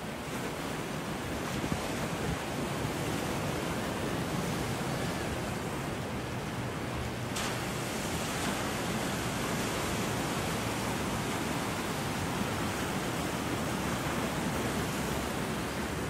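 Ocean surf breaking and washing over a rock shelf: a steady rushing noise, with some wind on the microphone.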